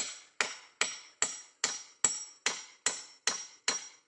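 Hammer driving a nail into the wooden roof frame of a hut: about ten steady, evenly spaced blows, between two and three a second, each with a short metallic ring.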